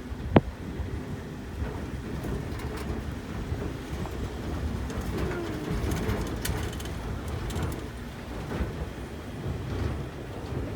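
Car driving along a rough forest road: steady low rumble of the tyres and engine, with one sharp knock about half a second in.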